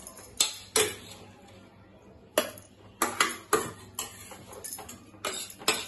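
A steel spoon knocking and scraping against a stainless-steel mixer-grinder jar and a steel pan, with about a dozen sharp, irregular clinks as the ground paste is spooned out.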